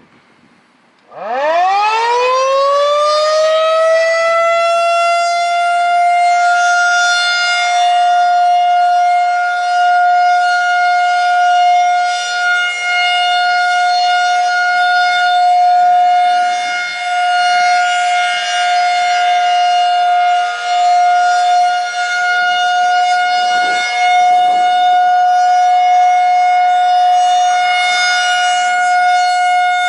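Federal Signal 2001-130 rotating electromechanical outdoor warning siren winding up about a second in, its pitch climbing quickly and then holding one steady tone. This is the steady alert signal of a scheduled monthly siren test. The level swells and dips slightly as the horn turns.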